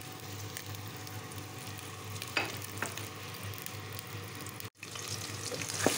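Freshly added sliced onions frying in hot oil in a steel pot: a steady, fairly quiet sizzle, with a couple of faint clicks in the middle.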